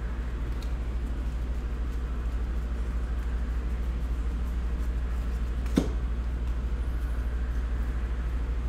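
Steady low background hum, with one sharp click, likely a trading card snapping, a little under six seconds in.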